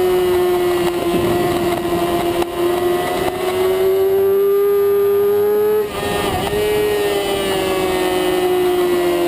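Supersport race motorcycle's engine heard onboard at high revs, with wind rush. Its pitch climbs, breaks sharply about six seconds in as the bike shifts down from fourth to third gear, then runs on and slowly falls.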